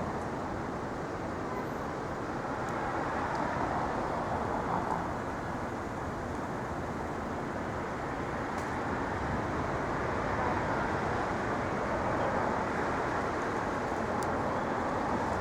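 Steady city street traffic noise: a continuous wash of passing cars, swelling a little at times.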